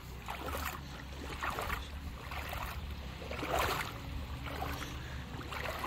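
Legs wading through shallow seawater, the water swishing and sloshing in soft surges about once a second, over a low steady hum.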